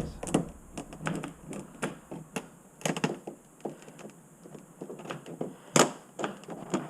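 Plastic clips and trim on a car's top dash panel clicking, creaking and knocking as the panel is pried loose, with a sharp snap about six seconds in.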